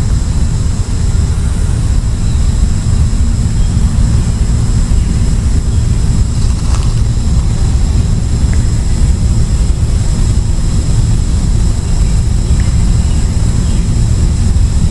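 Steady low rumble of wind buffeting the microphone, with a faint steady high whine above it.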